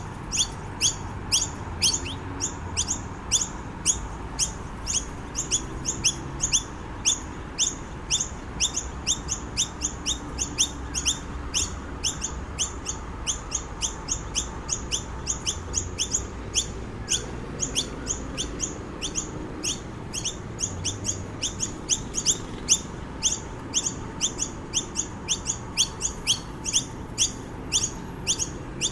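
Noisy miner calling with a rapid, unbroken series of short, sharp chirps, about three or four a second.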